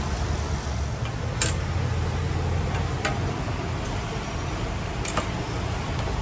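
A few sharp clinks of steel kitchen utensils, the loudest about one and a half seconds in, over a steady low hum.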